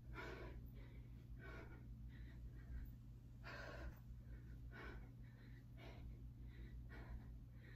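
A woman's faint, heavy breathing from the exertion of squat jumps, short sharp breaths about one a second.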